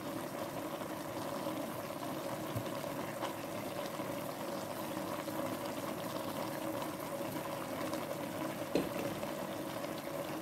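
Plantain and mixed vegetables simmering in liquid in a pan: a steady bubbling with a few faint pops.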